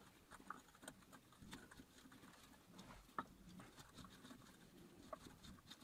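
Near silence with faint scattered clicks and scrapes from a bicycle bottom bracket cone being unscrewed by hand, grinding on grit in its thread, with one slightly louder click about three seconds in.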